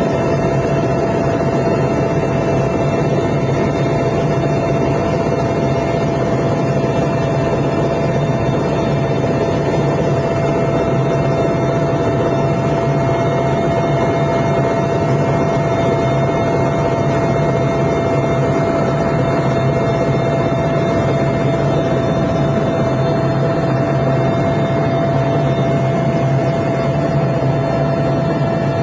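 Mil Mi-8 helicopter in flight, heard from aboard: loud, steady turbine and rotor noise with a constant high whine, unchanging throughout.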